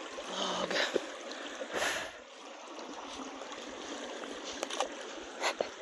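Shallow headwater stream of the North Santiam River running over rocks, a steady rushing trickle, with a few short knocks from footsteps on the log crossing it.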